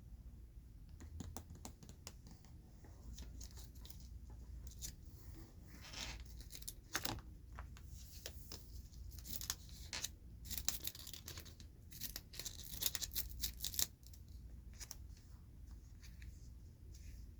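Scratchy rustling and crackling from handling jumbo Pokémon cards, a run of short sharp strokes that grows busier and louder through the middle of the stretch and then dies back down.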